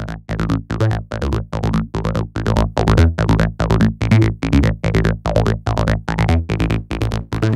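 Electronic dance track with a strong, pulsing bass line, chopped into about four to five pulses a second. It plays through the Fire multiband saturator, switched to its 'Sausage' hard-clipping mode with the drive turned up to 14, so the bass is being saturated and clipped.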